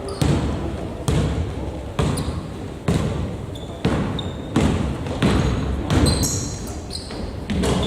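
A basketball being dribbled on the court, a bounce about every second, with a few short high sneaker squeaks in the middle.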